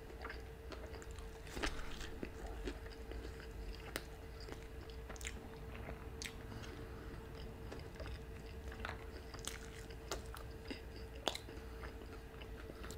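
Quiet mouth sounds of biting into and chewing a breaded fried-chicken sandwich, with scattered soft crunches of the breading.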